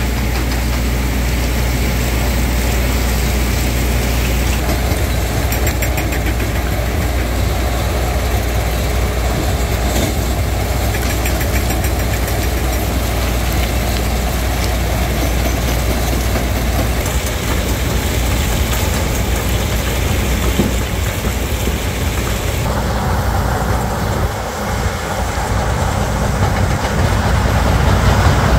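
Heavy rock-crushing plant running steadily, with machinery and engines humming and crushed rock pouring off a stacking conveyor onto a stockpile. The mix of machine noise changes twice in the later part.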